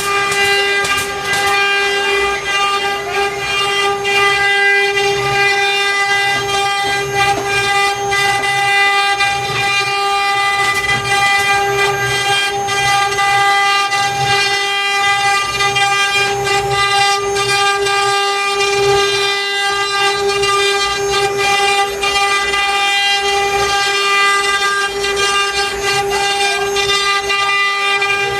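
CNC wood router's spindle running with a steady, high-pitched whine that holds one pitch throughout, over an uneven, rougher noise lower down.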